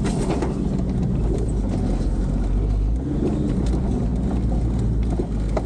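Off-road 4x4 heard from inside the cab, driving slowly over a rough dirt track: a steady low engine drone with scattered small rattles and knocks from the cab.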